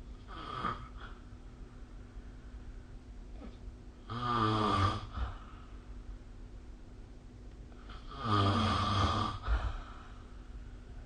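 A person snoring in sleep: a faint snore near the start, then two loud snores about four seconds apart, each lasting about a second. A steady low hum runs underneath.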